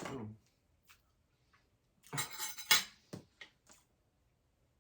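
Cutlery clinking and scraping on a plate during a meal, in a cluster about two seconds in followed by a few short clicks.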